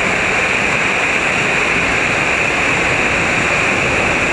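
Mountain waterfall pouring down a rock face: a loud, steady rush of falling water.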